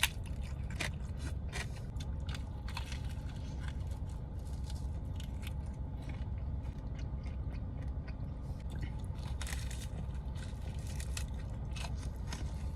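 Close-up chewing of a meaty chicharrón (fried pork rind) dipped in salsa and guacamole: irregular crisp crunches, busier near the end, over a steady low hum.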